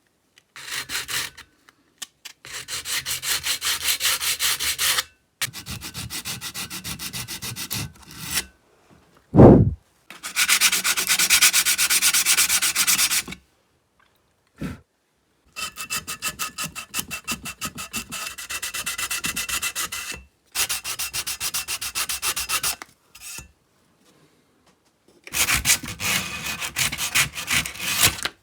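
Hand sanding of chainsaw parts before painting: quick back-and-forth abrasive strokes in runs of a few seconds, with short pauses between runs. A single knock sounds about a third of the way in.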